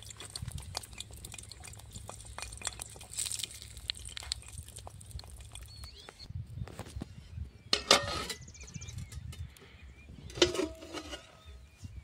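Small wood fire crackling under an iron frying pan, with scattered small clicks and two louder knocks about eight and ten and a half seconds in.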